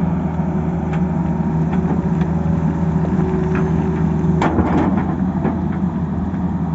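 Tata Hitachi excavator's diesel engine running steadily. About four and a half seconds in, a short burst of clattering knocks, stones and rubble against the steel bucket as it scrapes along the edge of the cut.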